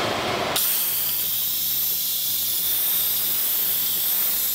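Instant Pot Ultra's steam release valve venting during a quick pressure release: a loud, steady hiss of steam jetting out, which jumps up sharply about half a second in as the valve opens fully.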